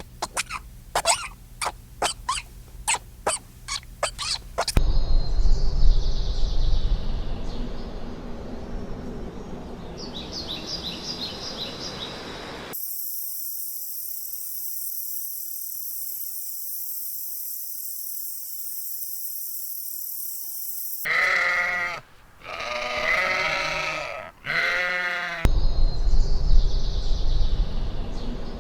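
Several short farm clips in a row: first a quick run of sharp clicking pulses, then a noisy, wind-like rumble, then a steady high hiss lasting several seconds. After that a farm animal bleats three times in a row, and the rumble returns near the end.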